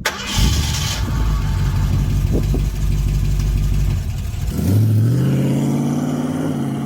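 Car engine running with a deep rumble, then revving up about four and a half seconds in, its pitch rising and then holding steady.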